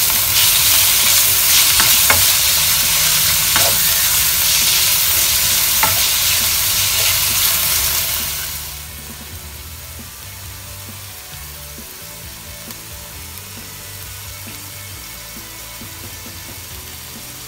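Sliced pork frying in hot oil in a wok, sizzling steadily, with a few light clicks of a spatula against the pan as it is stirred. About eight seconds in, the sizzle drops to a quieter level.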